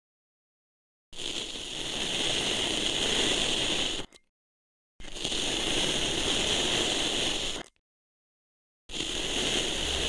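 A loop tool shaving curls off packed sand in three long scraping strokes, each about three seconds, with silent gaps between them.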